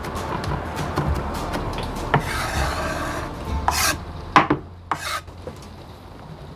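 Kitchen food-preparation scraping: a rough rasping scrape about two seconds in, then three short, sharp scrapes between about three and a half and five seconds in.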